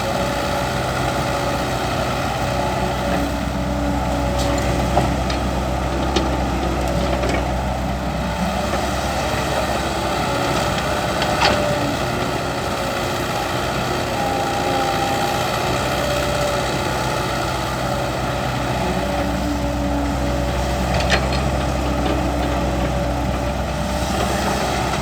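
Heavy diesel machinery running steadily as an excavator works beside dump trucks, with a few sharp metallic clanks.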